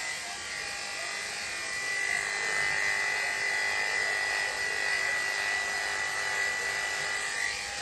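Electric dog grooming clippers with a #10 blade running steadily with a constant whine as they trim the hair under a Maltese Shih Tzu's front legs. The sound grows louder about two seconds in and stops near the end.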